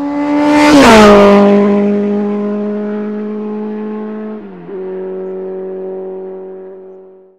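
A motor vehicle's engine passing by at speed: its pitch drops sharply as it goes past about a second in. It then runs on at a steady note with a brief dip in pitch and level midway, like a gear change, and fades out.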